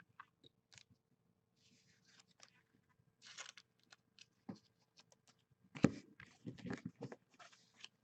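Trading cards being handled and flipped through by hand, giving scattered light rustles and clicks that are busiest and loudest about six to seven and a half seconds in.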